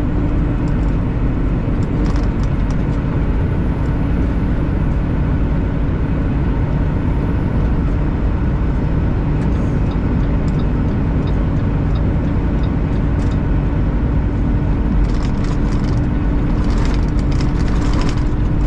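Semi truck cab at highway speed: the diesel engine drones steadily under road noise, with a constant low hum. A few light clicks near the end.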